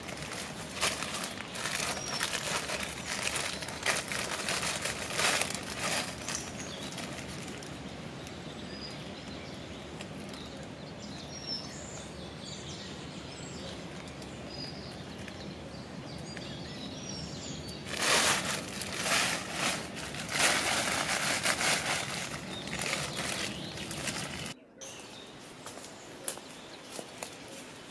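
Plastic tarpaulin rustling and crinkling in irregular bursts as it is handled, first in the opening seconds and again for several seconds past the middle, with small birds chirping high in the background. The sound drops to a quieter forest background near the end.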